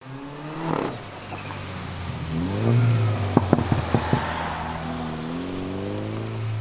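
Mini Cooper S engine and exhaust revving, its pitch climbing and dropping, with a quick series of sharp pops from the exhaust about three to four seconds in, then the pitch rising again.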